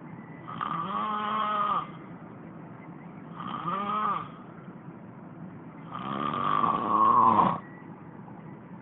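A turtle snoring: three separate snores with a wavering, arching pitch, about two and a half seconds apart. The last snore is the longest and loudest.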